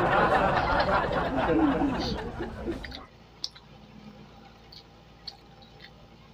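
A boy's tearful, sobbing voice, loud and dense, cutting off abruptly about three seconds in. After that come faint lip smacks and a few small clicks of people chewing and eating with their hands.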